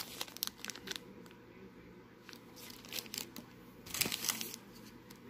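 Clear plastic bags of wax melt samples crinkling as they are handled: scattered light rustles, with a louder stretch of crinkling about four seconds in.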